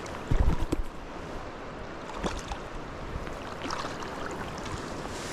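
Flowing river water, with a few heavy low thumps just after the start and scattered light clicks afterwards.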